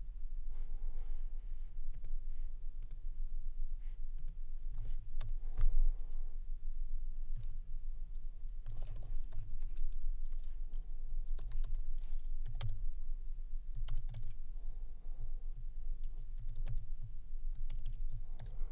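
Typing on a computer keyboard: irregular runs of keystrokes, over a low steady hum.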